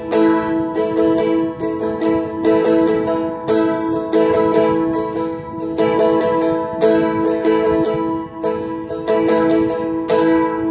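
Seagull Merlin M4, a four-string dulcimer-style strumstick, strummed in a steady rhythm on an A chord, with the strings ringing between strokes.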